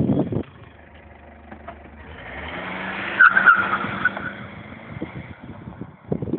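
A car driving past on the motorway, its engine and tyre noise swelling to a peak about three seconds in, with a whine at the loudest point, then fading away.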